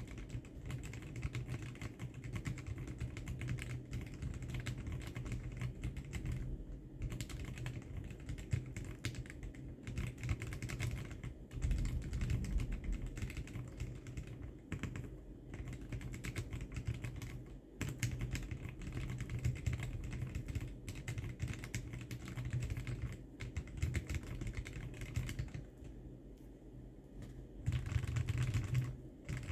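Steady typing on a budget ortholinear mechanical keyboard with Momoka Frog switches and XDA-profile keycaps in a Tofu60 case: a fast run of deep, low key clacks, with a few brief pauses.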